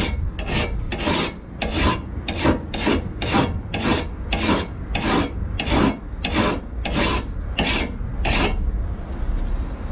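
Hand file rasping along the steel edge of a Makita 36V cordless lawn mower blade in steady, even strokes, about two a second, sharpening the blade and restoring its cutting profile. The strokes stop near the end.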